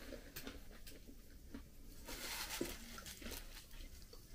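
Quiet eating sounds from someone eating a nut meringue: soft chewing with a few small clicks, and a short breathy hiss about two seconds in.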